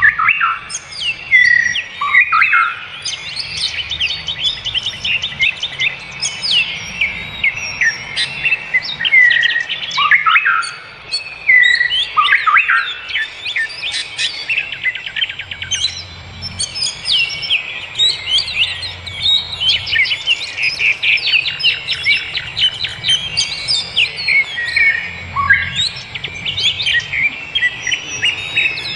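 Many forest birds singing and calling at once, a dense chorus of chirps, rapid trills and short falling whistles.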